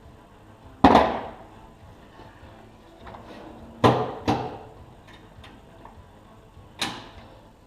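Four sharp metal strikes, each ringing on briefly: a hammer tapping clip-on balancing weights onto a steel wheel rim. One comes about a second in, two close together near the middle, and one near the end.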